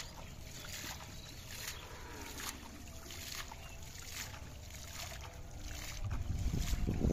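Shallow water splashed by hand, a splash about once a second, as a man flings water toward a triangular hand net to drive fish into it. Near the end a low rumble of wind on the microphone grows louder.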